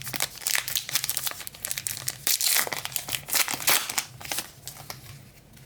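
Foil trading-card pack wrapper crinkling and tearing as it is ripped open, for about four and a half seconds, then dying down.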